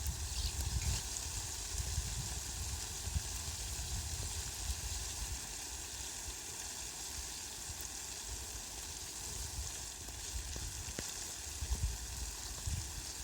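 Heavy rain falling on leafy plants: a steady hiss, with uneven low rumbling underneath that comes and goes.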